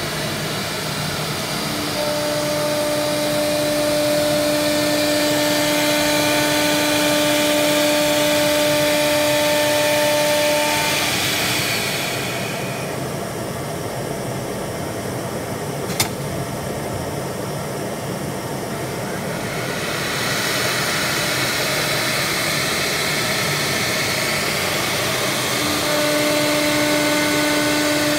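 Three-head CNC wood router cutting a wooden board, a steady spindle whine over the rush of dust extraction. Around the middle the high cutting noise falls away for several seconds, with one sharp click, then the whine and cutting noise return.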